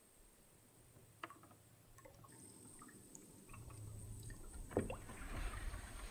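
Canoe paddling: a paddle dipping and pulling through calm water with small drips and trickles and a few light clicks. It starts faint and grows louder over the last few seconds.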